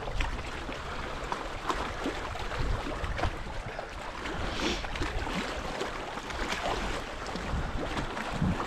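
Small waves lapping and splashing against a rocky shoreline, with many irregular little splashes over a steady wash and a low wind rumble on the microphone.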